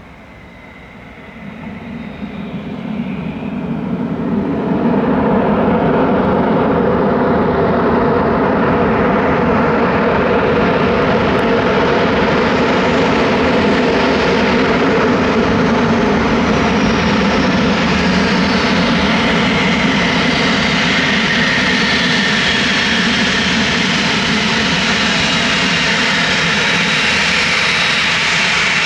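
Twin PW545 turbofan engines of a landing Cessna Citation XLS+ business jet, growing louder over the first five seconds into a steady loud jet roar with a faint high whine over it.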